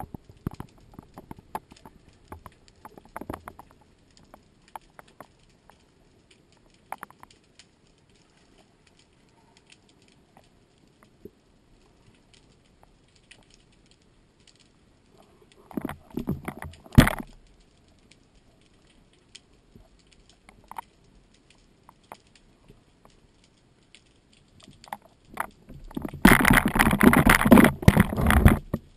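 Underwater sound heard through the housing of a camera mounted on a speargun: sparse faint clicks and crackles, a short rushing burst ending in a sharp knock a little past halfway, and a longer, louder rushing noise near the end.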